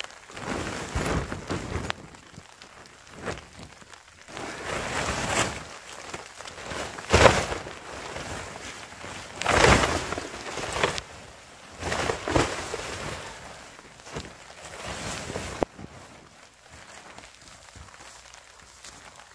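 Nylon tent rainfly rustling and flapping in irregular bursts as it is handled and thrown over a dome tent's poles. The sharpest rustle comes about seven seconds in and the loudest about ten seconds in.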